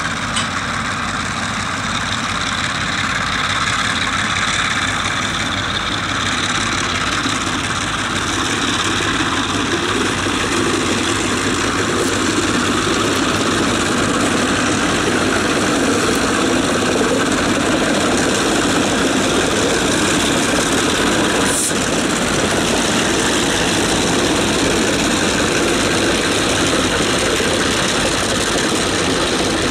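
DBR and DA class diesel-electric locomotives passing close under power, their engines running loud and steady and growing a little louder over the first several seconds, followed by the carriages rolling by on the rails.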